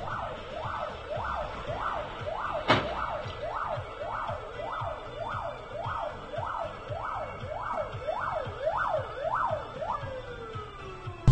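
Emergency vehicle siren on a fast wail, its pitch sweeping up and down about twice a second, then winding down in one long falling tone near the end. A single sharp click sounds about a quarter of the way in.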